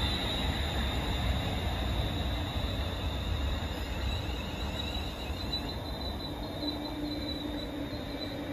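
London Northwestern Railway electric multiple unit slowing along the platform, its wheels and brakes giving a steady high squeal over a low running rumble that slowly fades.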